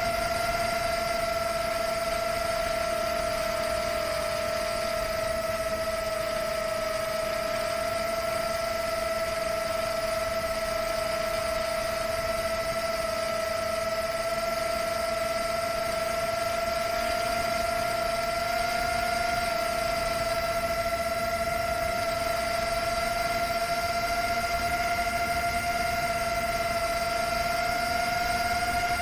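6S Rekon 5 long-range FPV quadcopter's motors and propellers, heard from the camera on board: a steady whine at one held pitch, the drone cruising at constant throttle, over a steady hiss.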